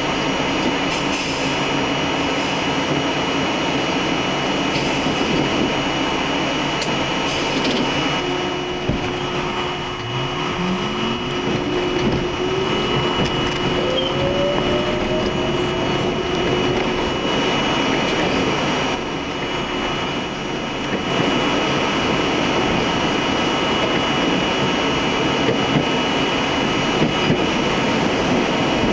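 R32 subway train running on the track: a steady noise of wheels on rails and car equipment. A traction-motor whine rises in pitch over several seconds, starting about a third of the way in, as the train picks up speed from a crawl.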